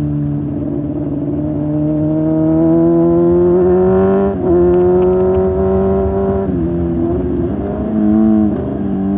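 Motorcycle engine running under way. Its pitch climbs slowly, breaks briefly about four seconds in, drops about six and a half seconds in, then wavers with the throttle near the end.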